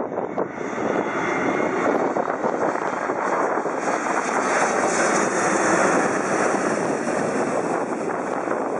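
Boeing 777 jet airliner on landing approach with its gear down, passing low overhead: steady jet engine noise that builds to its loudest about five to six seconds in, then eases slightly.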